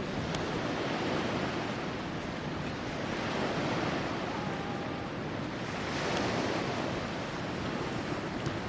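Sea surf washing onto the shore, its noise swelling and easing in slow surges, with wind rumbling on the microphone.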